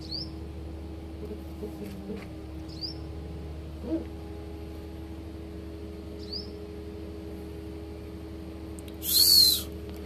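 A few faint, short bird chirps every couple of seconds over a steady low hum. About nine seconds in comes one loud, shrill half-second bird cry.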